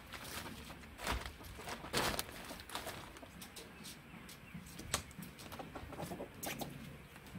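Chickens clucking in a coop, with a few sharp knocks and rustles from plastic greenhouse film and its frame being handled.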